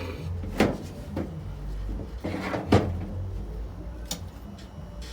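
A few separate sharp knocks and clanks, the loudest about two and three-quarter seconds in, as tools and parts are handled and set down, over a steady low hum.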